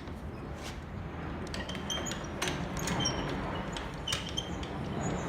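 Rong Yu RY-30 mill-drill humming steadily, with scattered clicks and several short, high squeaks.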